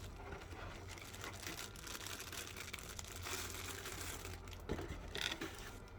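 Packaging crinkling and rustling as a new product box is opened and unpacked by hand, with a couple of sharper knocks near the end.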